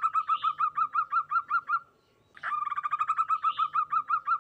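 Zebra dove (perkutut) calling: a rapid run of short, clear cooing notes, about seven a second, in two phrases with a brief pause between them.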